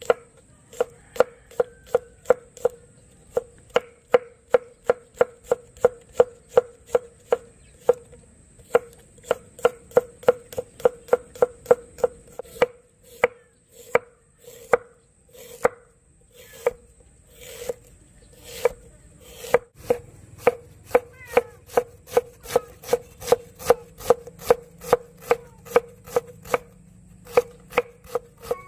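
Large kitchen knife chopping on a wooden cutting board: sharp, regular knocks about three a second, with a few short pauses, as garlic and then ginger are cut into slices and thin strips.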